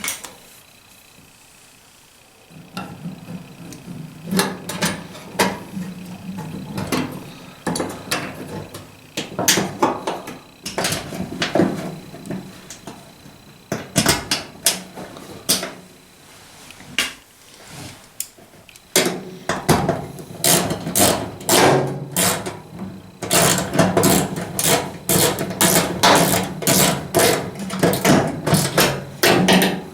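Repeated irregular clicks, taps and knocks of metal parts and hand tools as a dryer's drum roller bracket is fitted back in place, coming thicker and faster in the second half.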